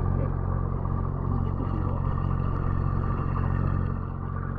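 A boat's engine running steadily with an even, low hum.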